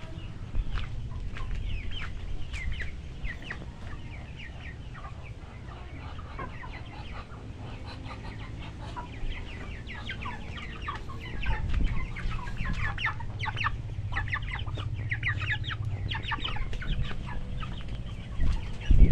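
A flock of chickens clucking, with many short calls overlapping, busiest in the second half, over a steady low rumble.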